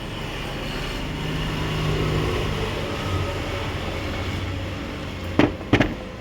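A car engine running steadily, a little louder about two seconds in, with two sharp clicks close together near the end.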